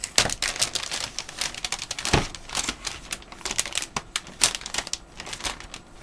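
Anti-static shielding bag crinkling and crackling as a motherboard is slid out of it: a dense run of irregular crackles, with a louder one about two seconds in.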